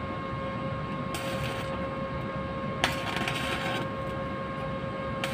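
Steady machine hum with a constant whine underneath. Over it, electrical wiring is handled by hand: a short rustling scrape about a second in, then a sharp click followed by a longer rustle near the three-second mark.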